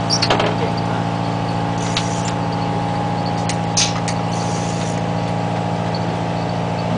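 Boat's engine running with a steady, even hum, a few short sharp clicks over it, the loudest about four seconds in.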